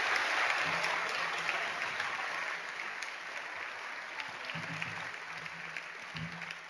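Audience applauding, a dense patter of many hands clapping that fades away gradually.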